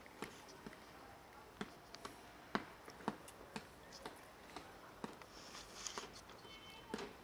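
Several cats eating cat food: irregular chewing and smacking clicks, the loudest about two and a half seconds in.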